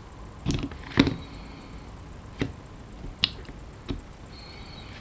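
Small parts of a KJW KC-02 airsoft rifle's trigger mechanism being handled with pliers: about five sharp clicks and knocks, the loudest about a second in. Brief high metallic ringing follows the loudest click and sounds again near the end.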